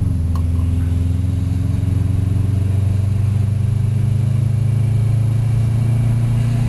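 Turbocharged Subaru flat-four engine and road noise heard from inside the cabin while cruising between pulls: a steady low drone whose pitch sags slightly as the car eases off.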